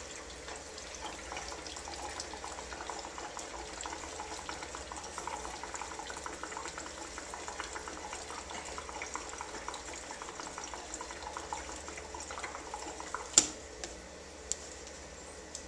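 Liquid pouring from a spouted can into the filler on top of a Harbor Freight Predator 212cc engine, a steady trickle and gurgle. A sharp knock comes near the end, with a smaller one just after.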